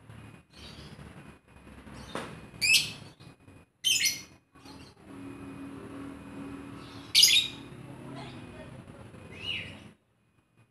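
Lovebird chattering: shrill, sharp chirps in short bursts, loudest about three, four and seven seconds in, over a low steady hum. The sound stops suddenly near the end.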